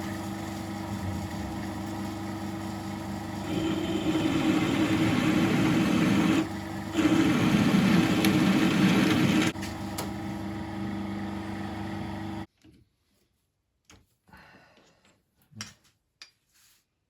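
Metal lathe running steadily while a drill bit cuts into a steel Triumph gearbox cam plate. The cutting comes in two louder, rougher spells, about 3.5 and 7 seconds in, as the pressing hole is drilled out to 12 mm to weaken the press fit of the half-inch pin. The lathe stops suddenly about 12 seconds in, followed by a few faint clicks.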